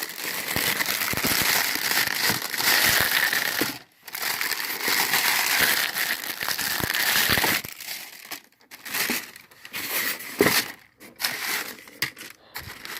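Crinkly packaging being crumpled and pulled away by hand while unpacking, a dense crackling rustle with a brief break about four seconds in. From about eight seconds in there are only scattered rustles and light handling clicks.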